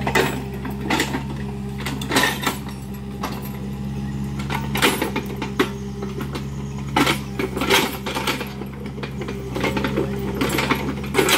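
Kubota mini excavator's diesel engine running steadily, with irregular sharp cracks and knocks as it tears into trees and brush.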